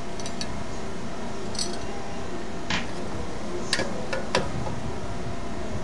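A handful of light metallic clicks and clinks, spaced a second or so apart, as gloved hands work a new rear brake disc and its retaining Allen screw on the wheel hub, over a steady background noise.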